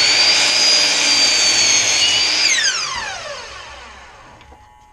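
Bosch miter saw's motor and blade running at full speed with a high whine as it makes the first 30-degree cut through laminated wood stock. About two and a half seconds in, the trigger is released and the whine falls steadily in pitch as the blade spins down.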